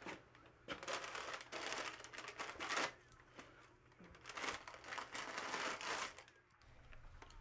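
Paper being crinkled and torn in three bursts as a wrapped present is opened.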